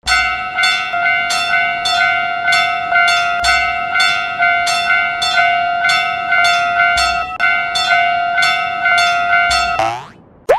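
Japanese railroad crossing (fumikiri) warning bell, ringing its fast, even electronic ding about two to three times a second. It stops near the end, followed by a short rising cartoon glide.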